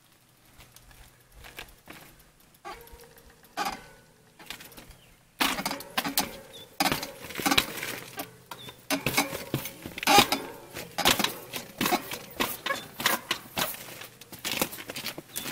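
Mountain bike hopping on concrete steps: after a quiet stretch with a few isolated clicks, a rapid, irregular run of knocks, thuds and rattles from the tyres striking the step edges and the frame and chain jolting, starting about five seconds in.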